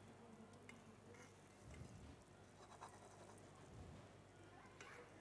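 Near silence: faint room tone with a few faint clicks and soft low thuds about every two seconds.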